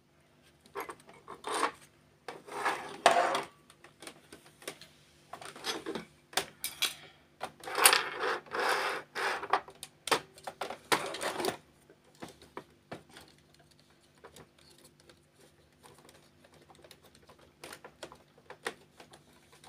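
Hands working on an HP LaserJet Pro 500 MFP M525 fuser assembly: plastic and metal parts scraping, rubbing and clicking in irregular bursts. The handling is busiest in the first twelve seconds, then only a few faint clicks.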